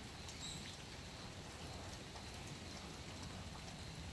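Light rain falling, with scattered drips ticking irregularly.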